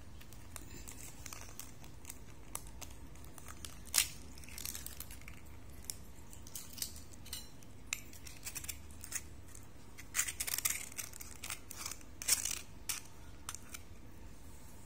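Shell of a soft-boiled egg crackling and snapping as fingers break and peel it open: scattered small cracks, one sharper crack about four seconds in, and thicker bursts of crackling later on.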